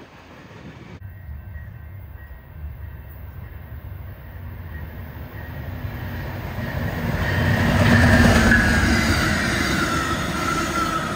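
Amtrak passenger train led by a Siemens Charger diesel locomotive approaching and passing at speed. The wheels on rail and the engine grow louder to a peak about eight seconds in, with a high whine that falls in pitch as the train goes by. The first second is the rumble of a receding freight train, cut off abruptly.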